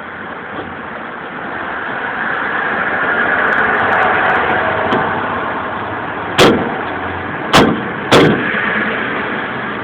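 Steady vehicle road noise that swells and fades, cut by three loud, sharp knocks in the second half, the last two close together.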